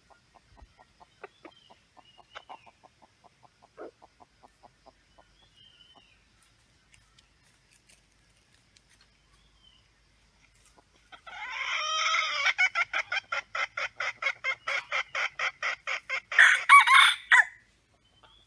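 Red junglefowl calling: faint quick clucking at first, then a loud, rapid cackle of about five notes a second for several seconds, ending in a louder, harsher burst.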